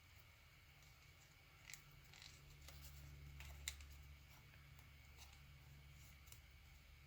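Faint crinkles and soft ticks of origami paper being folded and creased, the sharpest about a second and a half in and again near the middle, over a low steady hum.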